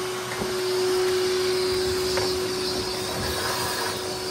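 Shop vac running with a steady hum, sucking carbon buildup and debris out of a Cummins diesel's open intake port. A few faint clicks sound through it.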